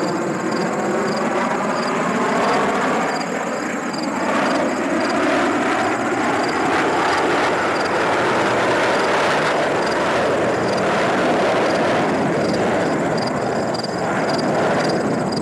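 Formation of Snowbirds CT-114 Tutor jets, each with a single turbojet, passing overhead in a steady, loud roar. A whine falls in pitch over the first few seconds as they go by.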